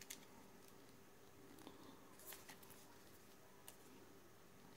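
Near silence with a few faint, short clicks and taps: a smartphone (Huawei Mate 10 Lite) being turned over and handled in the fingers.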